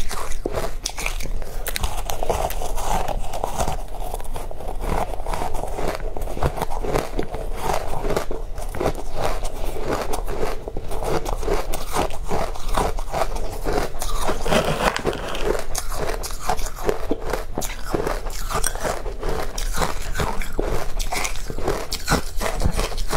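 Biting into and chewing powdery frozen ice dipped in matcha powder, close-miked: many sharp, quick crunches, with a fresh bite near the end.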